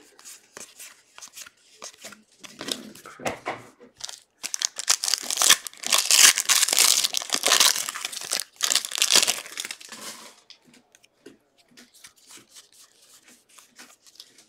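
A trading-card pack wrapper being torn open and crinkled for about six seconds, from about four seconds in, loudest in the middle. Before and after it there are lighter clicks and rustles of cards being handled.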